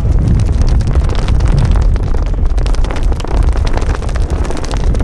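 Wind buffeting the microphone: a loud, uneven low rumble with scattered crackles.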